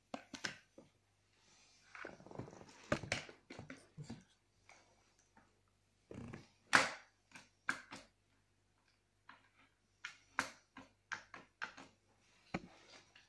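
Scattered sharp clicks and knocks of a baby stroller's metal frame and plastic fittings being handled as the rear brake bar is fitted, the loudest about halfway through.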